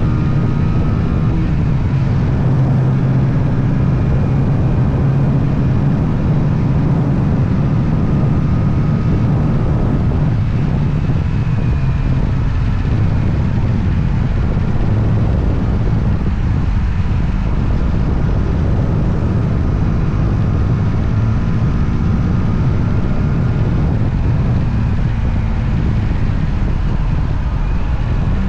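Motorcycle engine running steadily while riding, over wind noise. The engine note sags a little about ten seconds in and picks up again later.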